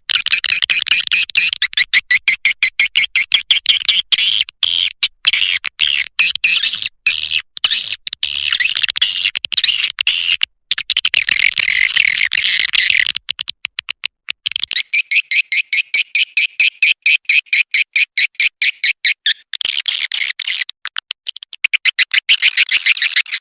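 Edible-nest swiftlet calls played back as a lure sound for a swiftlet house: fast, loud trains of high, buzzy chirps repeating over and over. After a short break about halfway through, the chirping returns in a cleaner, more evenly pulsed pattern, then grows fuller near the end.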